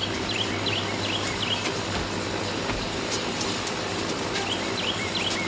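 Outdoor ambience: a steady rushing background noise with a low hum, over which a bird chirps in two quick runs of short sharp calls, one in the first two seconds and one near the end. A few faint clicks sound between them.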